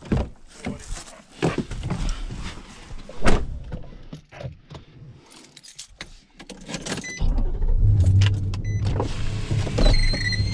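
Pickup truck door opened and someone climbing into the cab, with several clicks and knocks in the first few seconds. A couple of short dings follow, and the truck's engine starts about seven seconds in and runs steadily.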